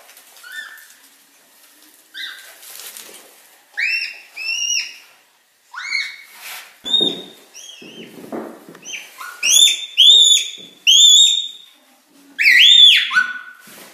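Red panda squeaking: a string of short, high, whistle-like squeaks, each rising and then falling in pitch. They come in quick runs and grow louder and more crowded in the second half.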